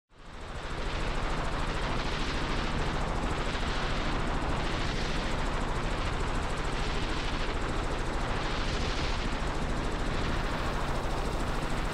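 Robinson R44 Raven II helicopter in cruise flight, heard from inside the cabin: a steady, fast, even beat of the rotor that fades in during the first second.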